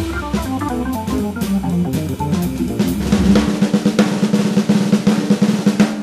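Jazz combo recording in a trading-fours passage: a drum kit plays busy snare and bass drum figures. A pitched instrument runs quick lines of notes alongside it, busiest in the first few seconds.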